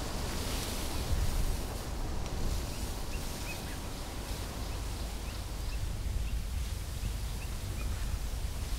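Short bird chirps here and there over a steady low rumbling noise.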